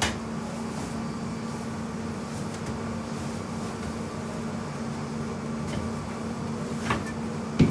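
Steady machine hum with a strong low tone, with a light knock about seven seconds in and a sharper knock just before the end.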